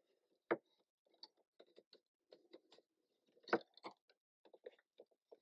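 Light clicks, rustles and knocks of wooden stakes and battens being handled and tied with cord on a canoe building frame, with two sharper knocks about half a second and three and a half seconds in.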